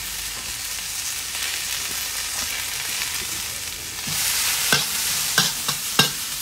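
Sliced onion, pepper and carrot sizzling in a hot oiled wok, a steady hiss that grows louder about four seconds in as they are stirred. Near the end come four sharp knocks of the stirring utensil against the wok.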